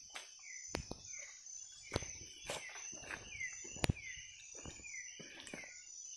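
Night rainforest insect chorus: a steady high drone, with a short falling chirp repeating about twice a second. Scattered snaps and crunches from footsteps in leaf litter, the sharpest nearly four seconds in.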